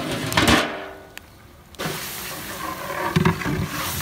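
A large metal pot lid clattering and ringing against the rim of a big cooking pot, then, from about two seconds in, a big pot of beef biryani masala bubbling hard over a wood fire with knocks of a long metal ladle.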